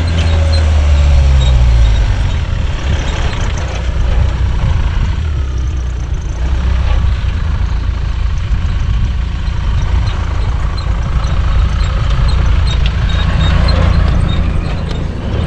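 A motor vehicle's engine running with a steady low drone, its pitch shifting briefly about a second in as the revs change.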